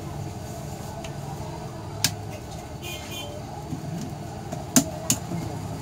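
Sharp plastic clicks as a smartphone's snap-on back cover is worked loose by hand: one about two seconds in and two close together near the end. A steady low hum sits under them.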